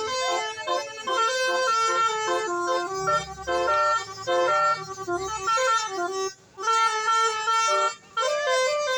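Bus telolet horn of the Basuri type playing a tune of stepped notes, with short breaks about six and eight seconds in. A low rumble sits under it for a couple of seconds near the middle.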